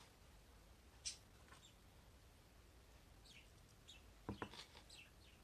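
Near silence, with faint, short bird chirps a few times in the background and a soft knock a little after four seconds.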